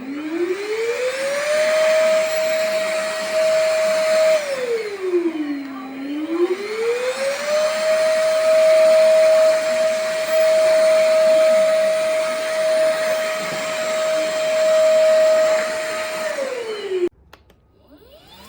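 VersLife S6PRO cordless stick vacuum running, its motor whine rising as it spins up and holding steady. About four seconds in it winds down and back up again, then it winds down and stops near the end before starting to spin up once more.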